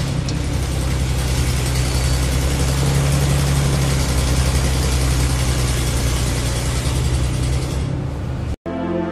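A tractor engine running steadily at an even pitch, which cuts off abruptly near the end as soft music begins.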